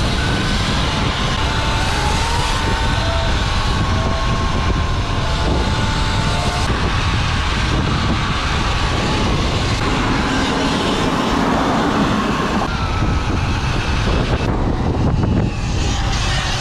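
Riding with a group of motorbikes: steady wind rushing on the microphone, with several thin motor whines rising and falling in pitch.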